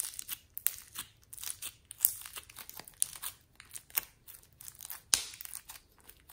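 Clear slime filled with small foam beads being pressed, squeezed and pulled apart by fingers: an irregular run of sticky crackles and clicks, with a few louder snaps, the sharpest about two and five seconds in.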